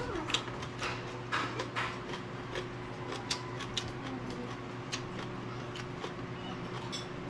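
Eating sounds from chewing raw green vegetables: irregular crisp clicks and crunches, close up, over a steady low hum.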